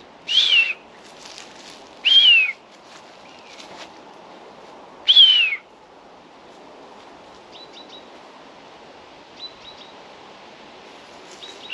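Common buzzard calling: three loud, downward-slurred cries about half a second each in the first six seconds, with a fourth starting at the very end.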